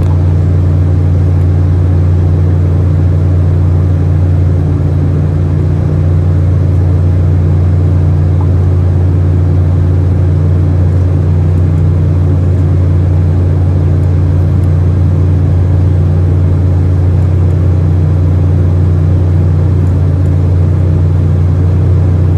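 Steady, loud cabin drone of an Embraer E190's General Electric CF34 turbofans and airflow in flight after takeoff, heard inside the cabin beside the engine: a strong low hum under an even rush of air.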